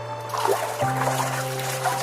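Calm ambient background music of held, sustained chords, changing to a new chord about a second in, with a light trickling and dripping water sound underneath.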